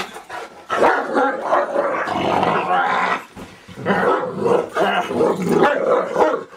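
St. Bernard play-growling while wrestling, in two long spells with a short break about halfway through. The growls are playful, not aggressive.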